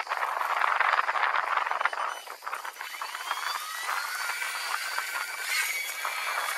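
A rough crackling noise fills the first two seconds. Then the RC plane's electric motor and propeller whine up in pitch at launch throttle and settle into a steady whine as the plane flies away.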